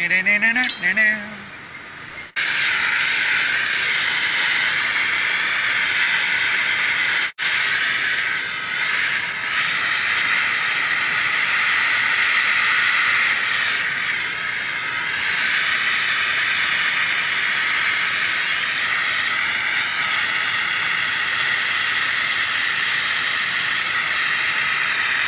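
A loud, steady hiss that starts about two seconds in and runs on, cutting out for an instant about seven seconds in.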